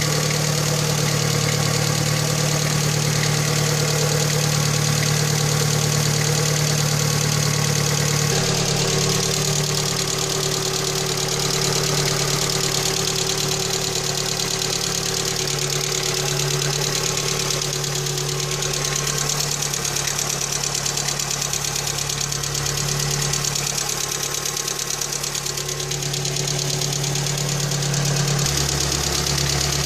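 Lada Kalina 1.5 engine running steadily with a knock, the fault that the owner is recording.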